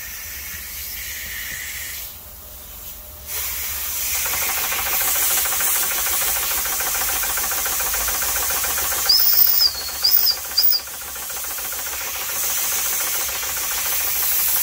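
Vintage Märklin toy steam engine driven by compressed air instead of steam: a steady hiss of air that dips for about a second, then comes back stronger. About nine seconds in, three short, loud, high whistle toots.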